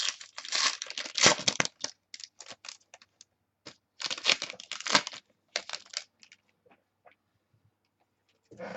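Trading cards and their plastic and wrapper packaging being handled: rustling and crinkling in two spells, at the start and again from about four to six seconds in, with scattered small clicks between.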